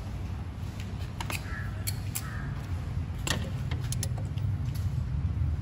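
Water-pump pliers clicking against the oil filter housing cap as they are set on it and take a grip, a handful of sharp ticks over a steady low hum.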